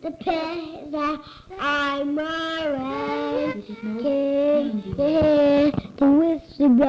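Old cassette recording of a young boy singing in a gravelly voice: several sung phrases with long held notes and short breaks between them.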